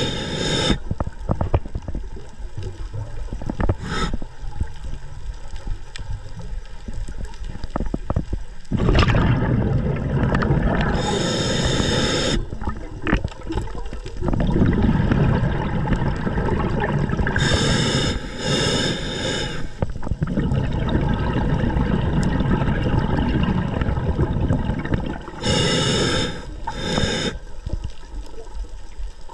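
Muffled underwater water noise heard through a camera housing while a diver swims over the bottom, getting denser about a third of the way in. Short higher-pitched hissing sounds cut in four times, each lasting a second or two.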